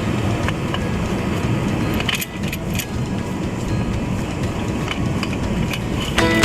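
Forklift diesel engine running steadily, with scattered light metallic clicks and jingles over it. Music starts right at the end.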